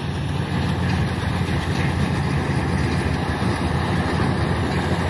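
Kubota rice combine harvester running steadily as it cuts a rice crop: an even diesel engine drone with the hum of its cutting and threshing machinery.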